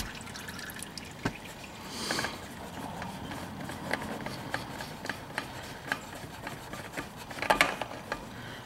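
Old Polaris spin-off oil filter being unscrewed by hand from an ATV engine, with small scattered clicks and scrapes of hand and filter against the housing and oil dripping and trickling into the drain pan. The loudest cluster of clicks comes near the end, as the filter comes free.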